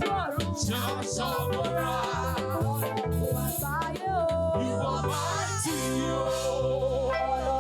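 Live church praise-worship music: a band with drums and percussion playing an upbeat groove, with voices singing over it. About six seconds in, the beat stops and the band holds a long sustained chord.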